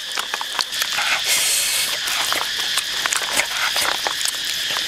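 Bare hands rubbing a thick, wet chili-paste marinade over the skin of a whole raw turkey: a run of quick sticky squelches and slaps.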